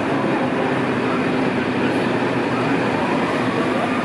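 Locomotive-hauled regional passenger train rolling past along the platform, an electric locomotive and its coaches: a steady rumble with a whine that rises slightly near the end.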